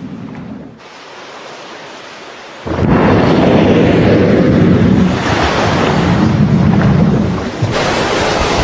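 Ocean wind and surf: a rushing noise that is moderate at first, then jumps suddenly about three seconds in to a loud rush with a deep rumble, changing character again near the end.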